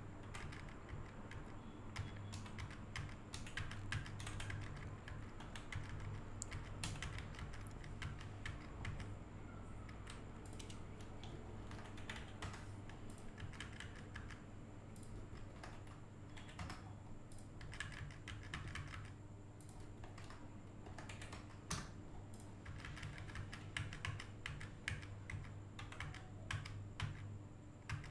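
Computer keyboard keys tapped in quick, irregular runs, the presses that nudge and match the paint source frame by frame, over a low steady hum.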